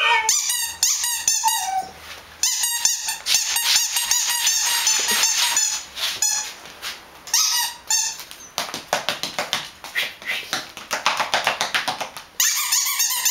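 Dogs yipping and squealing in play, a long string of rapid high-pitched yelps, with a dense run of short clicks through the second half.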